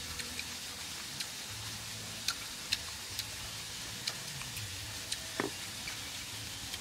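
Sparse small wet clicks and smacks from chewing and from fingers tearing cooked beef tripe, over a steady low hiss, with one short falling squeak about five seconds in.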